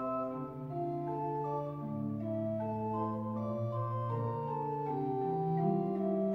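Organ music: several notes held together in slow, overlapping chords that shift every second or so.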